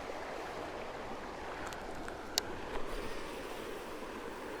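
Steady rushing of moving river water, with one short sharp click about two and a half seconds in.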